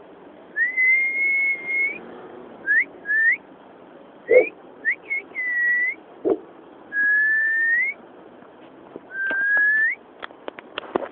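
Dog shut in a car whining: a series of high-pitched, whistle-like whines, some long and some short, most rising in pitch at the end. A few short yelps come between them, and a run of light clicks comes near the end.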